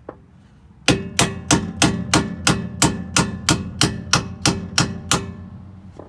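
A hammer striking metal: a run of about fourteen quick, even blows, roughly three a second, each with a short metallic ring.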